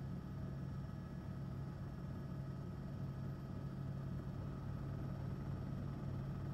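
Steady low drone of a helicopter heard from on board, unchanging throughout.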